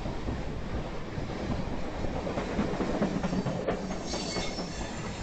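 Freight train of flatcars loaded with welded ribbon rail rolling past, steel wheels rumbling and clicking over the rails. A faint high wheel squeal comes in about four seconds in as the last car goes by.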